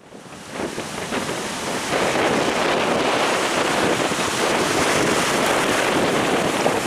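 Strong wind blowing across the microphone over breaking sea waves. It is a steady, dense rush that fades in over the first two seconds and then holds.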